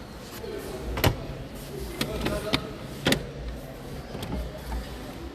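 A few sharp clicks and knocks, roughly one a second in the first half, over a steady low hum and faint murmur of background voices.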